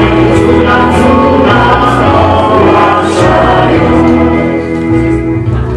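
Choral music, a choir singing over instrumental accompaniment with held notes and a repeating bass line.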